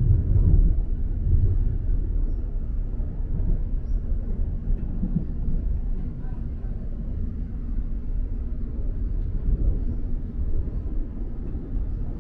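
Steady low rumble of an Elizabeth line electric train running along the track, heard from inside the carriage, with the loudness rising and falling slightly.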